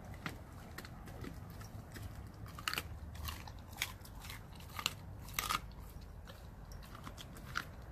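Blue Bay Shepherd chewing raw food in its jaws: irregular wet crunches and sharp cracks, a few seconds apart, with a louder cluster of crunches about five and a half seconds in.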